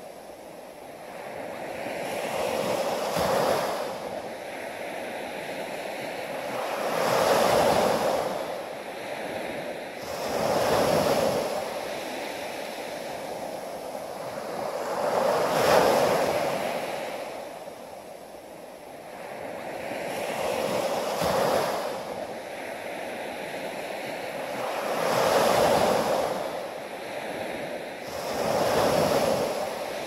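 Small sea waves breaking and washing up a sandy beach, the surf swelling and falling back about seven times, roughly every four seconds.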